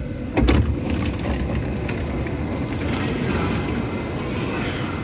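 U-Bahn train door released with its push-button: a single heavy knock about half a second in as the door unlocks and opens, then a steady rumble of the standing train and station.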